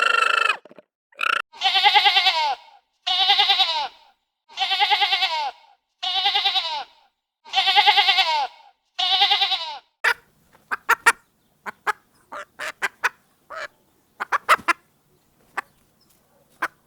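Goat bleating: six loud, trembling bleats about a second and a half apart, each dropping in pitch at its end. They are followed by a scatter of short, sharp clicking calls.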